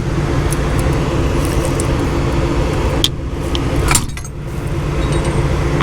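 John Deere S780 combine running steadily at idle, with a few sharp metallic clinks of hand tools on the draper header's failed bearing, the loudest nearly four seconds in.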